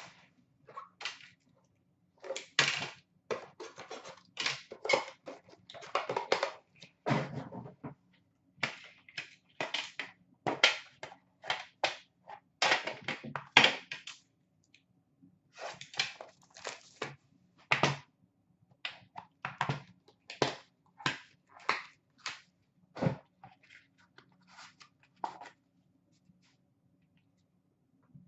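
Irregular clicks, knocks and rustles of a metal trading-card tin, its packaging and a stack of hockey cards being handled and set down on a glass counter.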